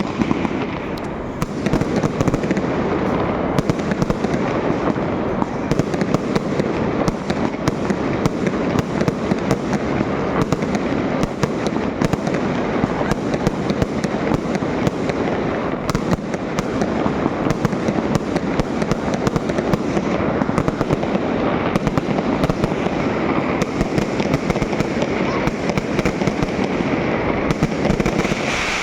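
Fireworks going off in a dense, continuous barrage of rapid crackling bangs that keeps up without a break.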